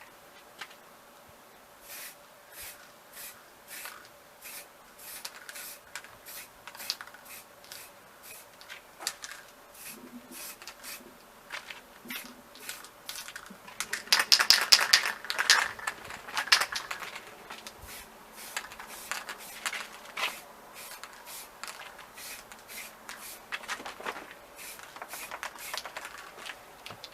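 Aerosol spray paint can hissing in many short bursts, with a louder, longer run of spraying about halfway through.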